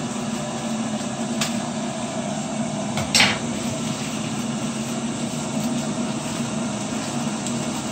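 Electric kettle heating water, a steady hiss with a low hum. About a second and a half in and again about three seconds in, the plastic noodle packet crinkles sharply as it is handled.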